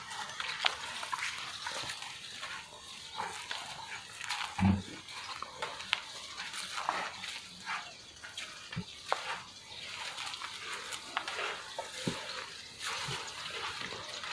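Farm animal sounds: short, scattered calls and noises, with one louder low sound about four and a half seconds in.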